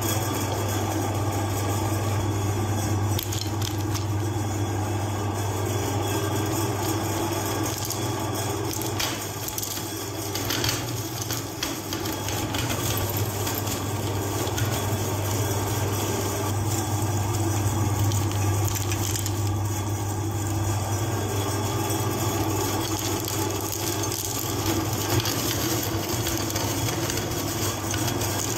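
Electric meat grinder running with a steady motor hum, its auger crunching hard candies with scattered crackling clicks.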